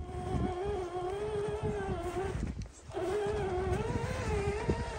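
1/10-scale electric RC crawler driving through snow: a steady electric motor and gear whine that wavers slightly in pitch, cuts out briefly in the middle as the throttle is let off, then comes back, with crunching of snow underneath.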